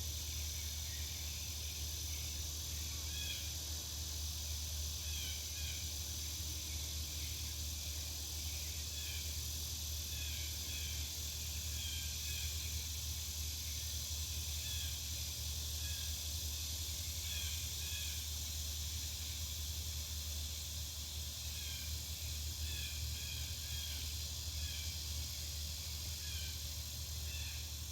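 Back-yard ambience: scattered short bird chirps over a steady high hiss and a low, constant hum.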